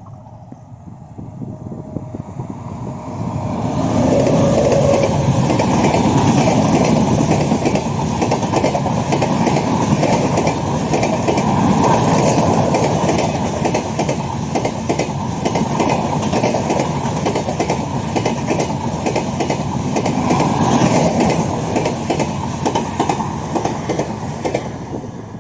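Train passing close by at speed, a dense clatter of wheels over the rail joints that builds over the first few seconds and then holds steady.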